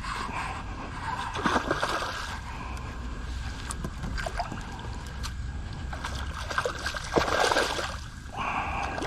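Water splashing in bursts beside a kayak as a hooked smallmouth bass is fought to the boat, with the heaviest splashing about a second and a half in and again near the end.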